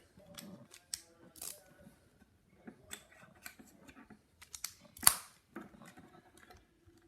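Plastic Lego pieces clicking and tapping as they are handled and pressed together, with one sharper snap about five seconds in.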